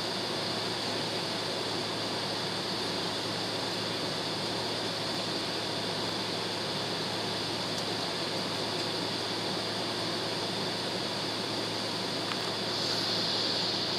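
Steady airliner cabin noise while taxiing: the engines running at low thrust and the cabin air system hissing, over a constant low hum. The hiss grows slightly louder near the end.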